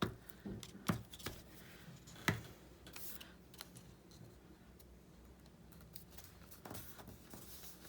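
Small tabletop crafting handling sounds: a few sharp clicks and taps in the first couple of seconds, then faint soft rubbing and rustling of paper.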